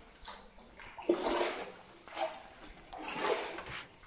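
Wooden oars of a hand-rowed rowboat dipping and pulling through calm river water, a splashing swish with each stroke in a steady rhythm of about one stroke a second.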